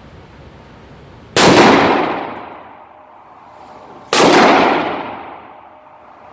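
Two AR-15 rifle shots about three seconds apart, each loud and sharp with a long echoing decay.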